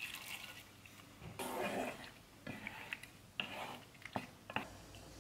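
Pasta water poured from a saucepan into a frying pan of rigatoni and sauce, a soft splashing. Then a wooden spoon stirs the pasta through the sauce, with a few sharp knocks against the pan.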